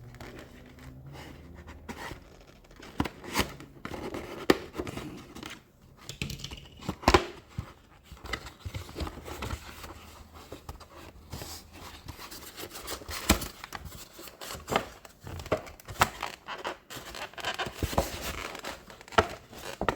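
A cardboard model box and its packaging being handled and opened by hand: irregular rustling, scraping and sharp clicks of cardboard and plastic.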